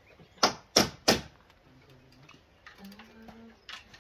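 Three sharp knocks in quick succession, about a third of a second apart, then a faint low hum.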